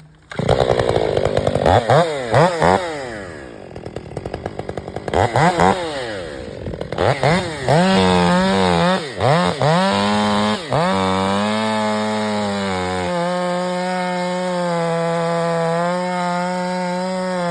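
Stihl 500i fuel-injected two-stroke chainsaw starting up and being revved in repeated quick blips, its pitch rising and falling. For the last few seconds it is held at a steady high speed.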